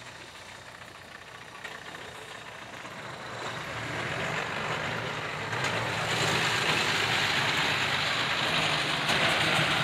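Ashok Leyland tipper truck's diesel engine getting louder as the truck approaches over about three seconds, then running loud and steady as it drives close by on the dirt track.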